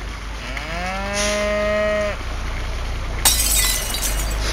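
A cow mooing once, a long low call that glides up at the start and then holds steady. About three seconds in there is a sharp hit with a short rushing noise after it.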